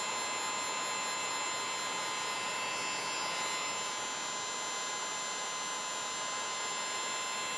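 Electric heat gun blowing hot air steadily onto heat-shrink tubing, its fan running with a thin steady whine.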